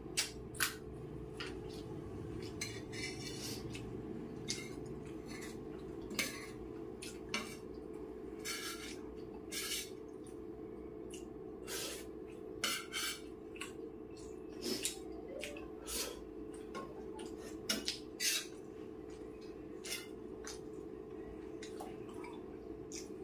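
Steel spoon clinking and scraping irregularly against a stainless-steel plate of rice and curry, mixed with wet chewing sounds. A steady low hum runs underneath.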